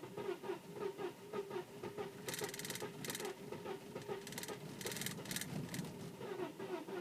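Audi A4 2.8 V6 engine being cranked by its starter motor, turning over in a steady uneven rhythm without catching, as with a car that won't start. Short bursts of rapid high-pitched buzzing come and go partway through.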